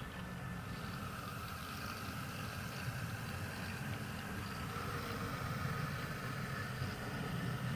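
Model railway locomotive running on the layout, a steady mechanical hum and rumble that grows slightly louder toward the end.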